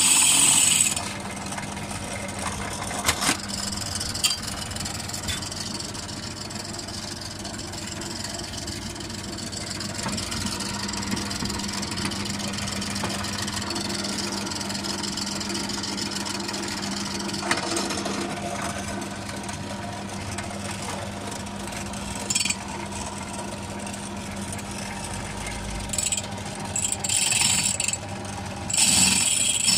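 Drill press motor running steadily with its hollow core bit clear of the glass, with a few light handling knocks. Near the end the bit bites into the glass bottle again and a loud, high-pitched grinding takes over.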